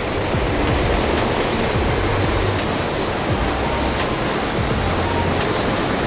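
Rushing mountain stream tumbling over rocks in small cascades: a steady, even rush of water.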